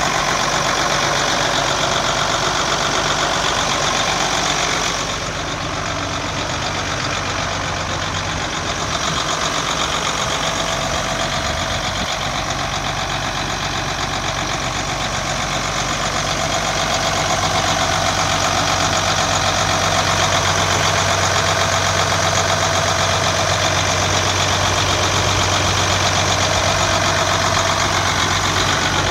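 Diesel engine of a 1993 Ford L8000 dump truck idling steadily, heard up close under the tilted-open hood. The sound drops slightly about five seconds in and grows a little louder past the middle.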